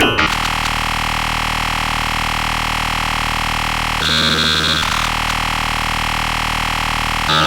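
A dense wall of synthesized MIDI notes sounding all at once, so thick that it comes across as a steady noise-like cluster rather than a tune. Its texture shifts briefly about four seconds in.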